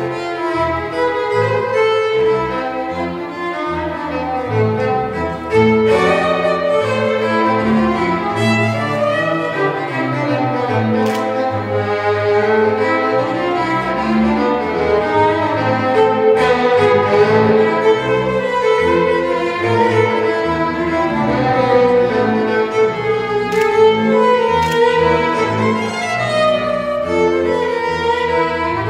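Violin and bowed double bass playing a lively tune together, the violin's quick melody over the bass line.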